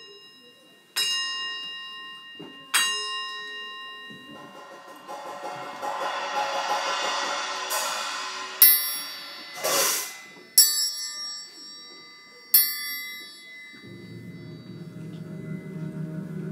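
Children's percussion soundscape: struck metal percussion ringing with bell-like tones, about five strikes spaced a second or two apart, each dying away slowly. In the middle a shimmering wash swells up and there is a short rushing burst, and near the end a low sustained droning tone comes in.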